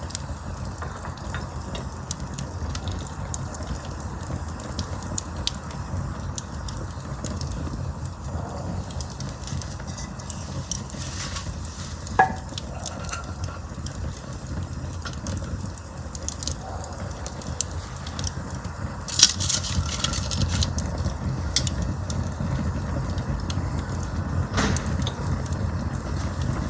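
Campfire burning: a steady low rumble of flames with scattered crackles and pops, a sharp pop about halfway through and a louder burst of crackling about three-quarters of the way through.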